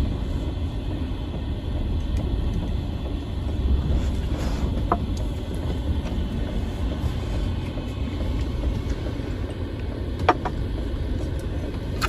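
Strong gale wind buffeting the camper van, heard from inside the cabin as a steady low rumble, with a couple of faint brief clicks about five and ten seconds in.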